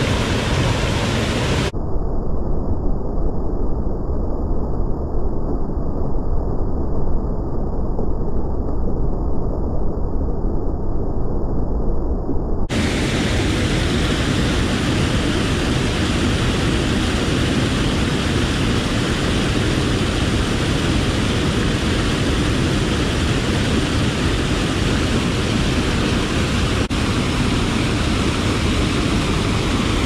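Steady rushing roar of a waterfall pouring over a rock ledge into a churning pool. From about two seconds in until about thirteen seconds in the hiss drops away, leaving a duller rumble.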